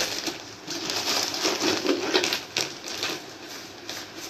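Plastic bag of salt crinkling and rustling as it is handled and shaken over a stone mortar, with a run of irregular quick clicks.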